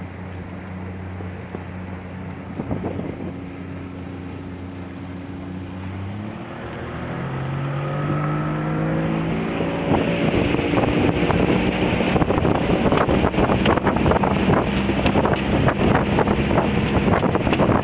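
Speedboat engine running steadily, then revving up with a rising pitch about six seconds in. From about ten seconds in it turns much louder, with rushing wind and water noise and rapid buffeting as the boat picks up speed.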